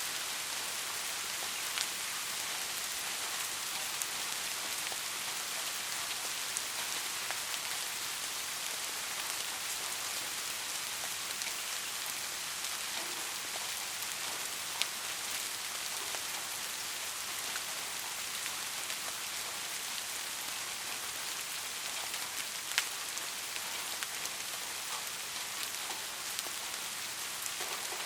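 Steady rain: a dense, even hiss with a few sharper single drop ticks standing out, and no thunder.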